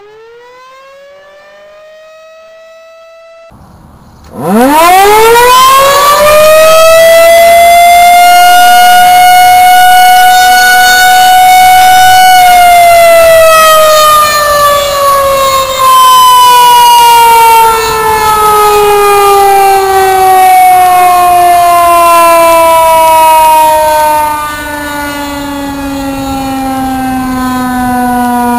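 Outdoor warning siren: a quieter siren rises in pitch and is cut off a few seconds in. A loud siren then winds up from a low growl to a high steady wail, holds it for several seconds, and then winds slowly down in pitch for the rest of the time. Its loudness dips briefly a few times and falls off near the end.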